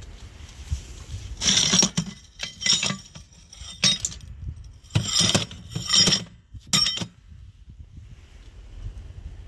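Cut steel discs clinking against one another and the steel box as they are handled, in about six sharp bursts during the first seven seconds.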